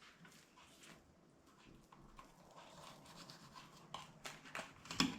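A kitchen knife working on fish on a cutting board: faint, irregular scraping and cutting, with a few sharper knocks and clicks near the end.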